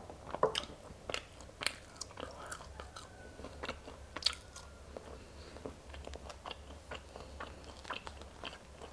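Close-miked chewing and biting of boiled velvet bean (mucuna) seeds, heard as irregular sharp mouth clicks and soft crunches. Now and then comes the sound of the pods being split open by hand.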